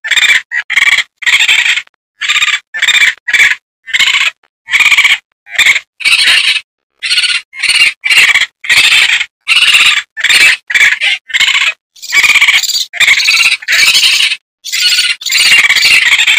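Raccoon calls: a rapid series of short, high-pitched cries, about two a second, each cut off by a brief silence; from about twelve seconds in the calls grow longer and run almost together.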